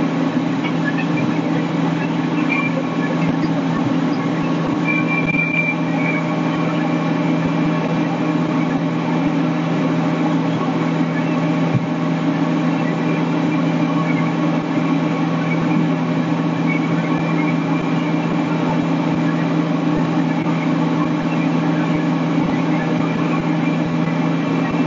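Fire truck's diesel engine running at a steady speed, a constant low hum that holds one pitch.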